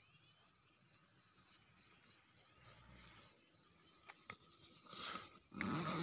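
Faint cricket chirps, an even high pulse about three times a second. Near the end come two sharp clicks and a louder rustle of tent fabric as the phone is handled.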